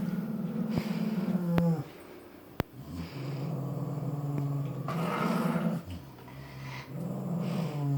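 Dog growling over a giant bone: three long, low growls with short breaks between them.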